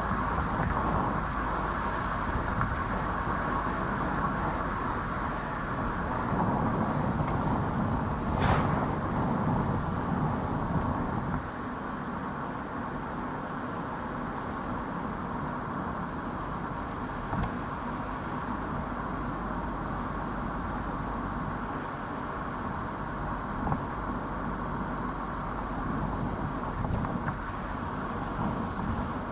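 Car driving along a road: steady engine and tyre noise, with a single sharp knock about eight seconds in. The noise eases a little about eleven seconds in.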